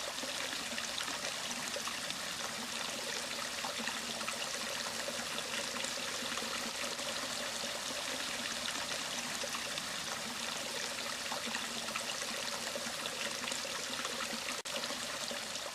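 A creek running, a steady rush of flowing water.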